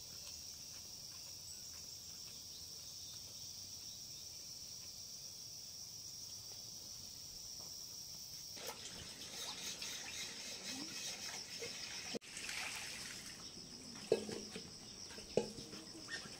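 Insects keeping up a steady high-pitched buzzing chorus. A softer hiss joins it in the second half, and a few short sharp knocks come near the end.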